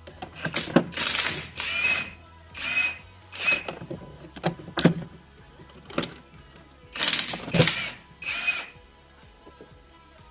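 Cordless impact wrench running the bolts out of a differential cover in a string of short rattling bursts, several with a high whine, with a few sharp clicks between them.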